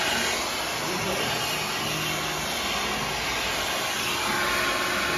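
Handheld hair dryer blowing steadily, a continuous even rush of air and motor noise.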